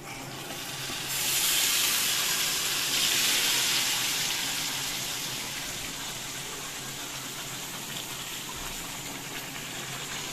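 Yogurt-marinated chicken sizzling as it goes into hot oil and browned onions in a kadhai. The sizzle surges about a second in, then gradually settles to a steadier, quieter sizzle.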